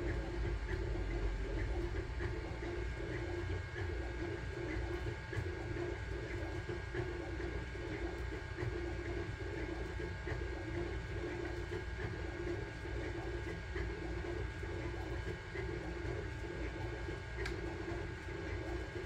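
Sunlu Terminator 3 FDM 3D printer running a print: stepper motors whirring with a fluctuating pitch as the print head and bed move, over a steady fan hum, with faint regular ticks.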